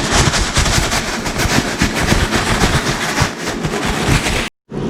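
Breadcrumbed fish pieces frying in hot oil, a loud, dense sizzle full of rapid crackling and spitting pops.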